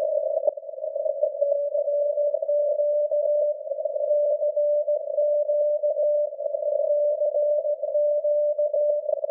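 Morse code from SAQ, the Grimeton VLF transmitter on 17.2 kHz, heard through a receiver in CW mode: a tone of about 600 Hz keyed on and off, starting about a second and a half in, inside a narrow band of hiss with a few static clicks. The signal sits in high noise.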